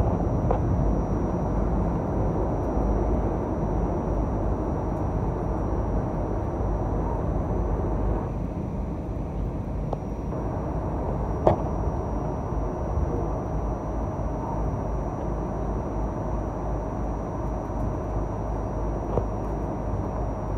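Inside an RTA Cleveland Green Line light rail car: a steady low rumble with a faint steady whine over it, broken by a sharp click about eleven seconds in and a lighter one near the end.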